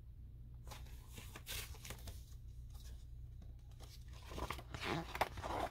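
Paper rustling and crinkling as the pages of a large picture book are handled and turned, busiest near the end.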